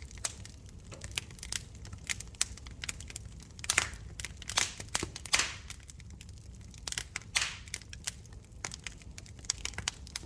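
Fire crackling in a fireplace: irregular sharp pops and snaps, with a few longer hissing crackles about four to five seconds in and again past seven seconds, over a steady low rumble.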